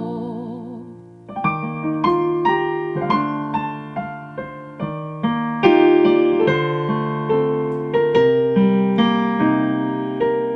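Piano interlude in a slow ballad: after a held note with vibrato fades out in the first second, a piano plays a flowing run of struck, decaying notes over sustained low notes.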